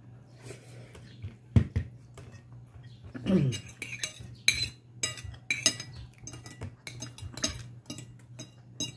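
Eating rice by hand from a glass plate: fingers scraping and tapping on the plate in a quick string of small clinks and clicks, thickest in the second half, with one louder knock near the start. A steady low hum runs underneath.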